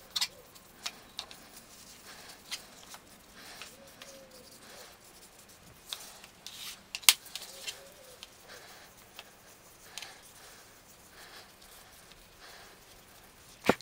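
Gloved hands wiping Danish oil onto wood-and-resin coasters and handling them: soft rubbing with scattered light clicks and taps as the coasters are moved and set down. There is a sharper click about seven seconds in and another near the end.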